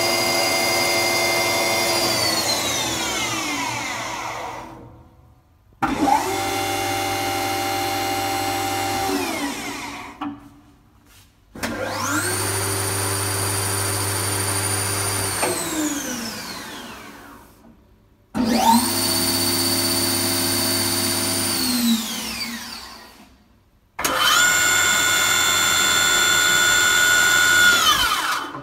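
Weinig moulder spindles run up one after another in a cycle of starting abruptly, running steadily with a whine for three or four seconds, then switched off and spinning down with falling pitch into silence. Four starts and five run-downs follow each other over the stretch.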